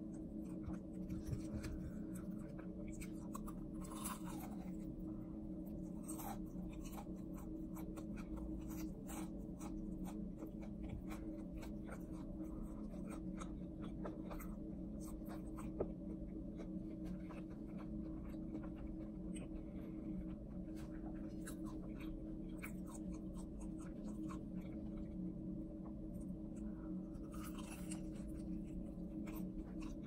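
Close-miked eating of crispy fried chicken: chewing and crunching heard as many small crisp clicks and crackles, with one sharper click about halfway through, over a steady low hum.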